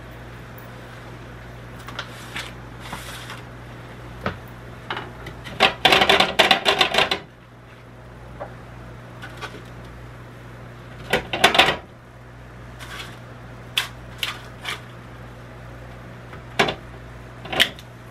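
Metal tongs clicking and scraping against the nonstick cooking pan of a Ninja Foodi XL grill as air-fried chicken wings are pried loose and lifted out. The wings are sticking to the unoiled pan. Scattered clicks, with two louder bursts of clatter about six and eleven seconds in, over a steady low hum.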